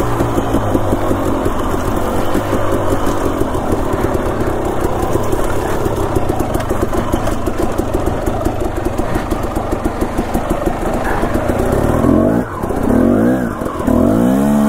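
Dirt bike engine running steadily under load while riding, then revving up and down several times near the end.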